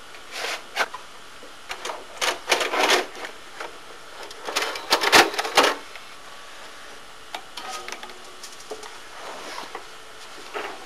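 A VHS cassette being handled and loaded into a VCR: bunches of plastic clicks and mechanical clunks, loudest about five seconds in, then a few softer clicks.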